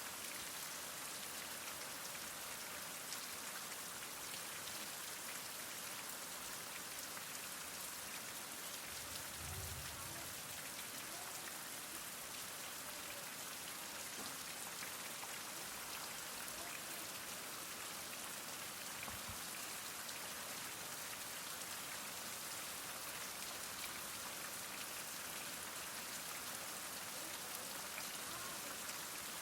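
Heavy rain falling steadily, a dense even hiss of drops with fine individual pattering ticks. There is a brief faint low thud about ten seconds in.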